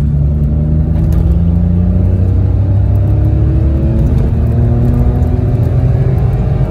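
Citroen C1's 1.0-litre three-cylinder 1KR petrol engine accelerating hard in second gear, its note rising steadily as the car gathers speed, heard from inside the cabin. This is a baseline run on the standard injectors.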